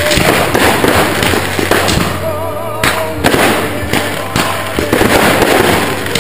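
Fireworks: a ground-level battery firing shots in rapid succession, the shells bursting overhead in a dense run of bangs.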